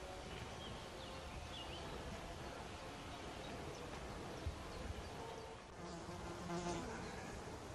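Flies and bees buzzing faintly over a summer meadow, their hum shifting in pitch as they move about.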